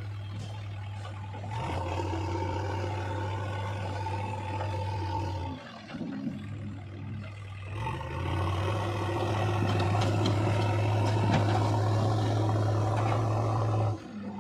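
Heavy diesel machinery engine running, getting louder as it is worked about two seconds in, easing off briefly near six seconds, then working hard and loudest from about eight seconds until it drops back just before the end.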